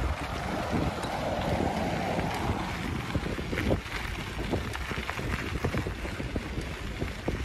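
Wind buffeting the microphone of a phone mounted on a moving bike, a steady rushing rumble. Frequent short clicks and knocks run through it, as from the bike and mount jolting.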